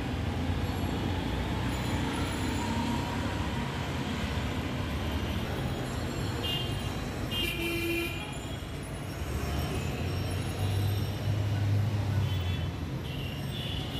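Busy street traffic: engines running with a low hum that swells about ten to twelve seconds in, and horns tooting briefly about six to eight seconds in and again near the end.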